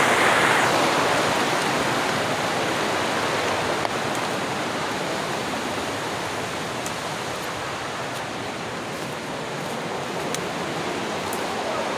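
River rapids rushing: a steady wash of flowing water that slowly grows fainter over the first several seconds, with a few faint clicks over it.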